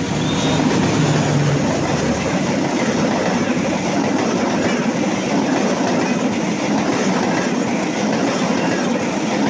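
Train wagons rolling past at close range, a loud, steady rumble of wheels on the rails. A low hum in the first second and a half ends, leaving only the running noise of the cars.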